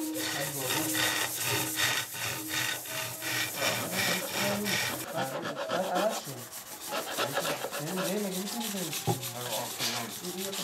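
A steel blade scraping and shaving the wood of a setar's bowl and neck by hand. Quick, regular strokes, about three a second, for the first half, then slower and less regular.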